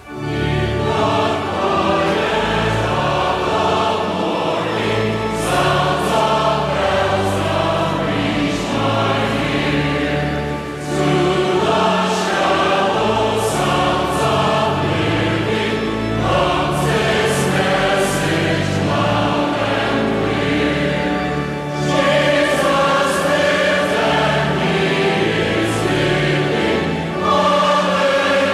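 Choir singing sacred music over sustained low accompaniment, in long phrases with brief breaks about 11 and 22 seconds in.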